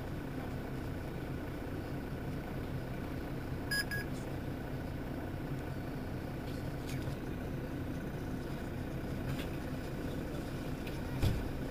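Mercedes-Benz Citaro city bus's diesel engine idling steadily, with a short electronic double beep about four seconds in.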